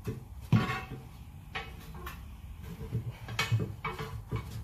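Steel tire irons clanking against a truck wheel's rim as the bead of a truck tire is levered over it: about six sharp metallic knocks, the loudest about half a second in.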